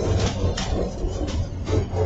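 Narrow-gauge diesel locomotive running at low speed under a steady engine rumble, with wheels clicking and knocking over the rail joints, heard from inside the cab.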